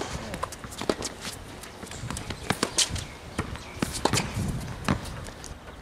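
Tennis ball being played on a hard court: a series of sharp racquet strikes and ball bounces, spaced about a second apart, with shoe scuffs and footsteps from a player running.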